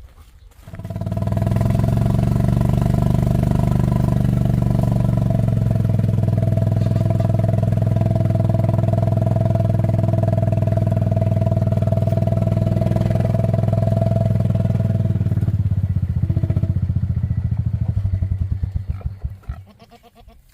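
A vehicle's engine starts about a second in and runs steadily. It slows to an idle with distinct firing pulses from about 15 seconds in, then shuts off near the end.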